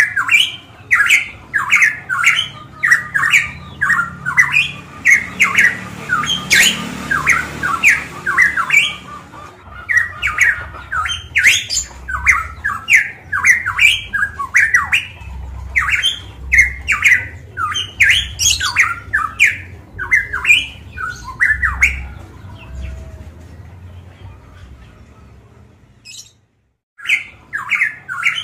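Caged pitohui (the Papuan 'cucak emas') singing loudly: a rapid, unbroken run of short, sharp notes, several a second, with a brief pause about ten seconds in. Near the end the song fades, cuts out briefly, and starts again.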